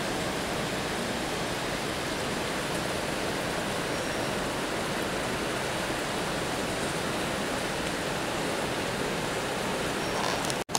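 Steady rushing roar of Dudhsagar Falls, a large monsoon-fed waterfall, heard from a distance as an even wash of water noise.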